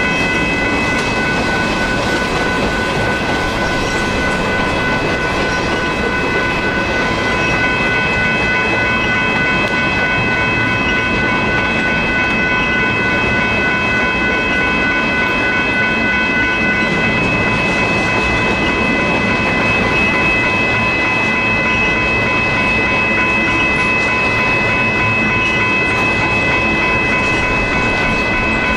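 Union Pacific freight train of covered hopper cars rolling past, its steel wheels on the rails making a loud, steady noise. Several steady high-pitched tones sound over it, one dropping out about halfway through.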